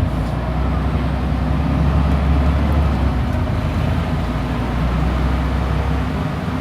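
Scania Omnidekka double-decker bus engine running steadily under way, a strong low drone that eases off near the end.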